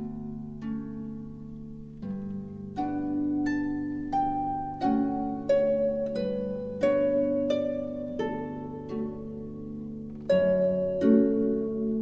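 Calm background music: a melody of plucked string notes, roughly one or two a second, ringing out over sustained low tones.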